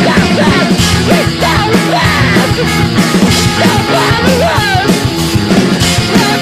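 Loud screamo/hardcore punk music, dense and driving, with notes sliding up and down in pitch throughout.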